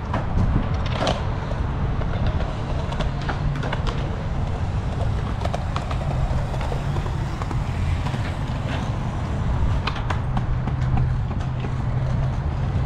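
Skateboard wheels rolling on concrete, a steady low rumble, with scattered sharp clacks of boards hitting the ground.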